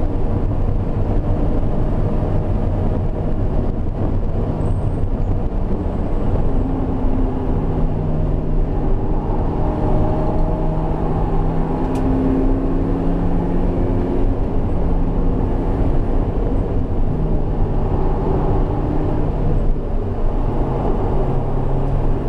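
Highly modified BMW E36 3-series engine and road noise heard from inside the stripped cabin at track speed. The engine note rises and drops in steps as the car accelerates and shifts gears.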